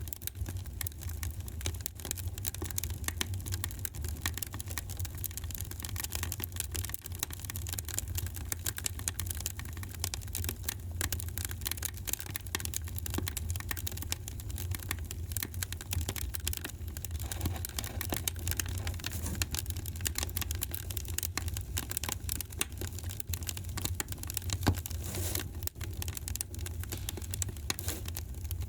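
Wood fire crackling in a fireplace: a dense, irregular stream of small pops and snaps over a steady low rumble, with one louder crack near the end.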